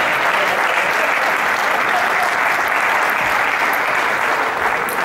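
Spectators applauding: steady clapping that begins to die away near the end.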